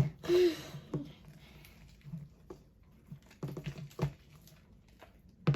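Sticky, freshly activated slime being stirred in a bowl: a sharp tap at the start, a brief wet smear of noise, then scattered light taps and squelches.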